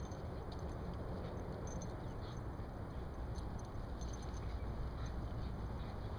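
Two dogs play-fighting on grass, with faint scuffling and scattered light ticks, over a steady low rumble of wind on the microphone.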